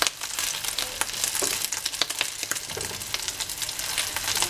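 Rice-and-egg fritters frying in hot oil in a glazed clay cazuela: a steady sizzle with many sharp crackles and spatters, and the spatulas scraping and tapping against the dish as they push the fritters together.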